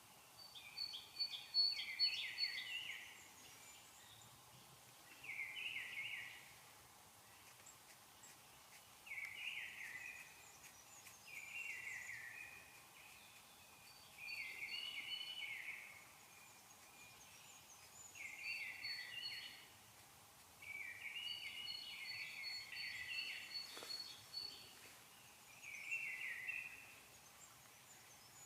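A songbird singing short phrases of about a second each, repeated every few seconds, over a faint steady background hiss.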